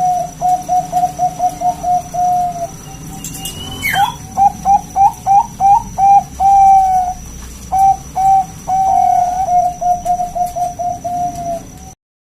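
Zebra dove (perkutut) singing its cooing song: quick runs of short, clipped coos, about five a second, broken by a few longer held notes and a rising swoop about four seconds in. The song cuts off suddenly near the end.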